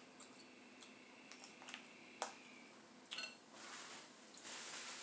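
Quiet, scattered clicks and small cracks of snow crab legs being picked apart and eaten, with one sharper click about two seconds in and a few more about a second later. A soft rustle comes near the end.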